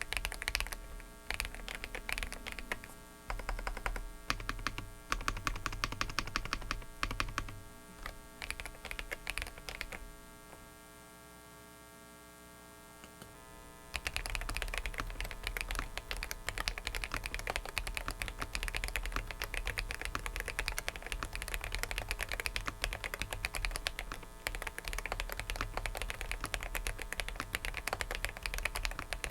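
Typing on a Dareu mechanical keyboard fitted with one of its custom switches: rapid key clicks, stopping for about four seconds partway through, then resuming. A faint steady whine from a faulty microphone runs under it.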